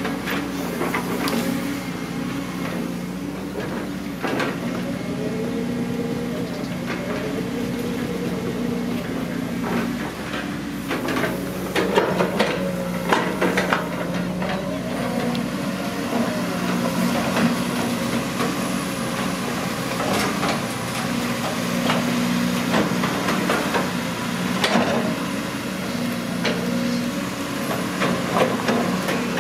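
Caterpillar long-reach excavator's diesel engine running steadily as it digs, with irregular knocks and clanks from the bucket and boom working in the mud.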